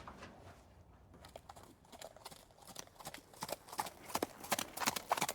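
Zebu hooves clopping in an irregular run of knocks that start about a second in and grow louder and closer together towards the end.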